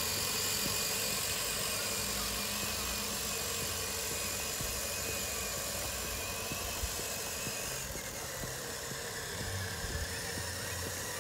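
Cordless drill motor driving a small go-kart: a steady high electric whine. About eight seconds in the whine drops in pitch, then climbs again near the end.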